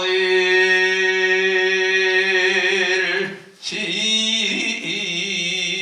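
Korean Buddhist monk chanting the memorial ritual text: one long note held steady for about three seconds, a short break for breath, then a new phrase that wavers up and down in pitch.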